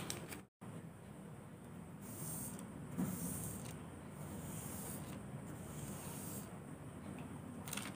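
Faint rustle of tracing paper being rubbed with the fingers against fabric, in short irregular strokes, with a soft knock about three seconds in.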